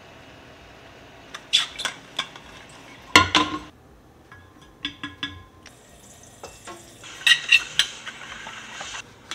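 Plastic supplement tub and shaker bottle being handled: scattered clicks and clinks, with a loud knock and a short ring about three seconds in, and a quick rattle of clicks near the end.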